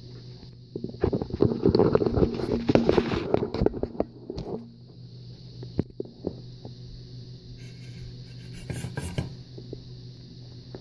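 Plastic Lego bricks clattering into a cast-iron skillet for about three seconds, dense clicks and knocks, followed by a few scattered clicks and a short rattle near the end, over a steady low hum and hiss.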